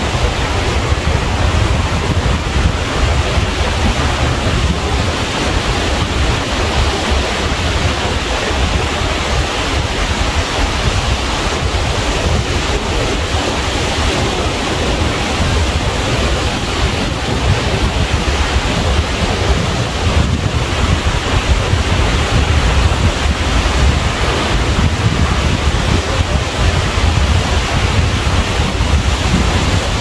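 Ocean surf washing on a shore in a steady, unbroken roar, with wind buffeting the microphone and adding a deep rumble.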